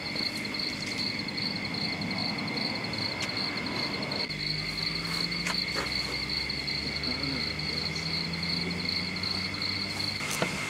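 Crickets chirping in a steady, rapid trill, with a low hum coming in about four seconds in and dropping away near the end.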